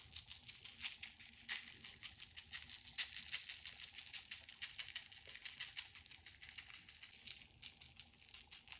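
Dry rub being shaken from a spice shaker onto shrimp skewers: a continuous fast, light rattling crackle of granules.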